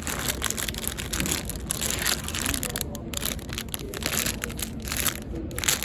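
Dense, irregular rustling and scraping, with many short crackles close to the microphone.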